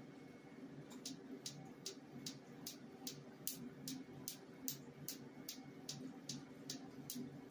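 Q-switched Nd:YAG picosecond laser handpiece firing onto the skin of a tattoo, each pulse a sharp snap, in an even series of roughly three a second starting about a second in. A steady low hum runs underneath.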